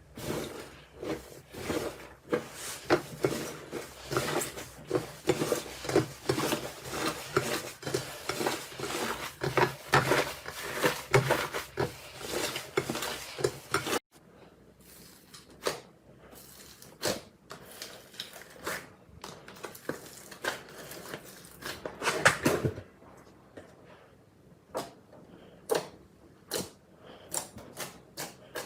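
Slime being squeezed and pressed by hand, giving dense, rapid crackling clicks and pops. About halfway through it cuts suddenly to a quieter clip with scattered single pops.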